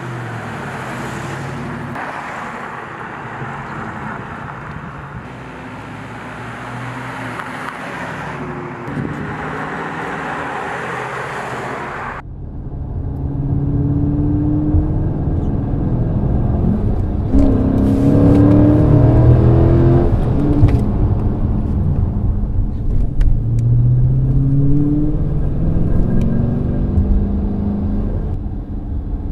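Dodge Charger V8 moving at low speed, a steady engine rumble with road noise. About twelve seconds in it changes suddenly to a louder Dodge Charger V8 revving hard, its exhaust note rising and falling several times as the car slides and accelerates.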